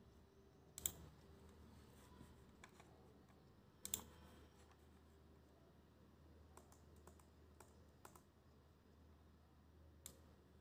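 Faint, scattered computer mouse clicks over a low steady hum: a sharper click about a second in, a quick double click near four seconds, a few softer ones later, and one more just before the end.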